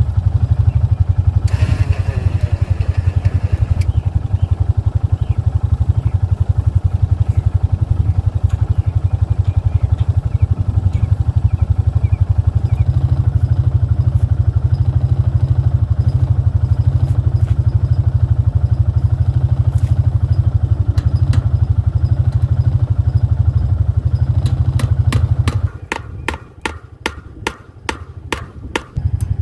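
An engine idling with a steady low rumble. Near the end the rumble drops away and a run of sharp, evenly spaced clicks, about three a second, takes over.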